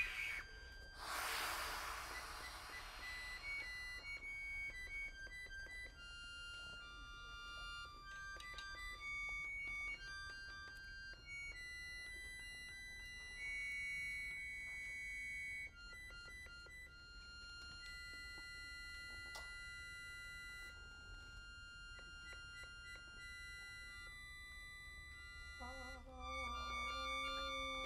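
Sparse contemporary chamber music for trumpet and accordion: quiet, long-held high tones that change pitch now and then. A short rush of air noise comes about a second in, and a fuller, organ-like accordion chord with lower notes enters near the end.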